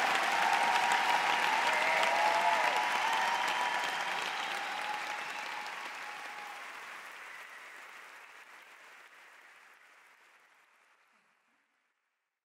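Concert-hall audience applauding, with cheers over it during the first several seconds; the applause fades steadily away to silence near the end.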